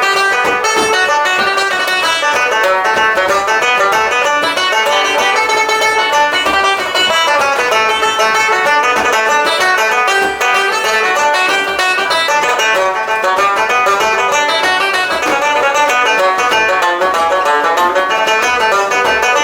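Traditional Irish dance tune played briskly, a banjo's quick plucked notes leading in a steady unbroken run.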